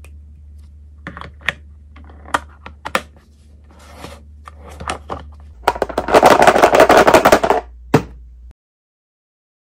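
Hard plastic toy lunch box handled on a tabletop: a run of light plastic clicks and taps as a toy figure is packed in and the lid closed. This is followed by a loud scraping rush lasting about two seconds as the box is slid and turned upright on the table, and one last knock as it is set down.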